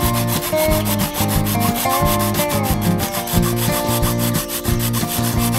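A hand saw cutting through a PVC pipe, a rasping rub with each back-and-forth stroke at an even pace.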